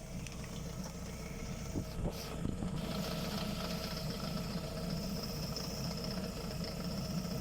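Lada Vesta idling with a mechanical knock from the gearbox and clutch, a fault that the owner says shows up mostly on a cold start and with the heated windscreen and rear window on, and that changes as the gear lever and clutch pedal are worked. A few short clicks come about two seconds in, and then the running goes on steadily, a little louder.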